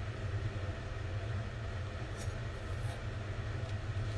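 A steady low rumble of kitchen background noise, with a few faint light clicks and scrapes of a metal spoon scooping miso from a plastic tub in the middle of the stretch.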